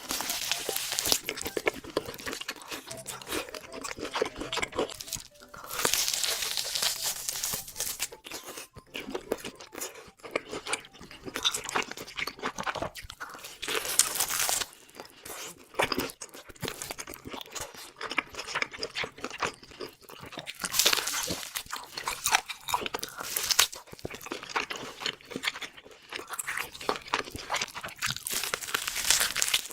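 Crunchy food being bitten and chewed, a dense crackle of sharp crunches that swells into loud bursts every few seconds.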